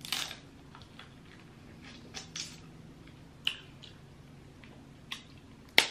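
Close-up eating sounds of crab legs: quiet chewing of crab meat with a few sharp clicks and mouth smacks scattered through, the loudest just before the end.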